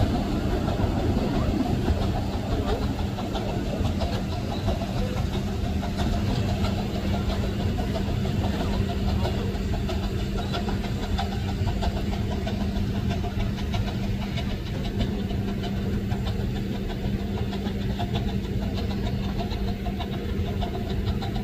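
Steady low mechanical hum over an even rumble, like an engine idling.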